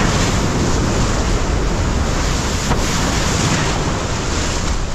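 Wind buffeting the microphone over the steady rush of water under a windsurf board moving through surf.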